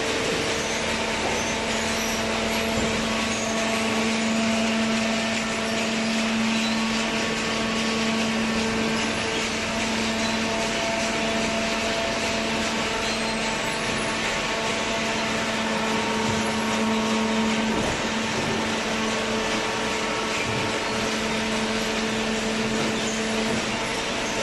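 Industrial cardboard baler line with conveyors running: a steady machine noise with a constant pitched hum, the lowest part of which drops away near the end.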